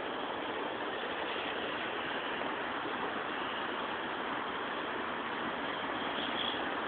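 Steady, even hiss of street ambience in an ice-pellet storm, with no distinct events standing out.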